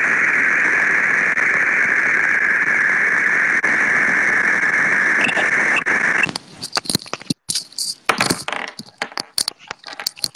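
Loud, steady static-like hiss that cuts off suddenly about six seconds in, followed by irregular clicks and crackles.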